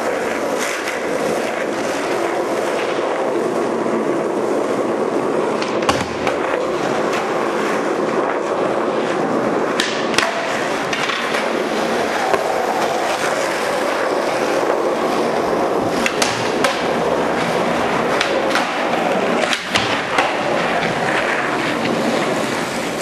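Skateboard wheels rolling steadily over a rough concrete-and-asphalt car-park floor. Several sharp wooden clacks of the board against the ground break through the rolling.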